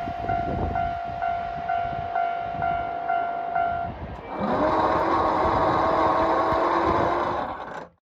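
Japanese level-crossing alarm bell ringing about twice a second while a passing train's wheels knock over the rail joints. About four seconds in the bell stops and a loud, steady horn blast starts with a short rise in pitch, holds for about three seconds, then the sound cuts off.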